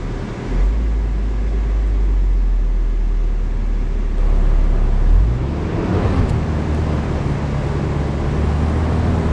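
GMC Canyon pickup driving on a dirt trail: a steady low engine drone with tyre and road noise, the engine note shifting about half a second in and again about five seconds in.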